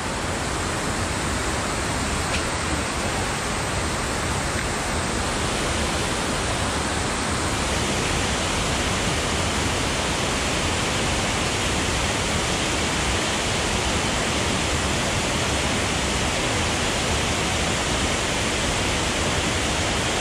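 Steady rush of water falling over a dam's spillway, an even, unbroken noise. It turns a little brighter about seven or eight seconds in.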